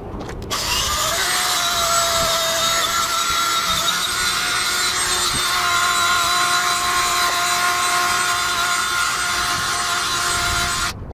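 Wire brush scrubbing soapy, oil-stained asphalt: a continuous rasping that starts abruptly about half a second in and stops just before the end, with a steady whine of a few held pitches underneath.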